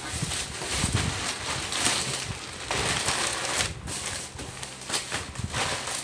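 Plastic packaging crinkling and tearing in irregular bursts as a black plastic bag and wrap are pulled off a parcel by hand.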